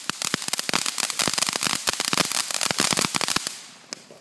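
Ground firework fountain spraying sparks with dense, rapid crackling, many small pops close together. The crackling dies away about three and a half seconds in.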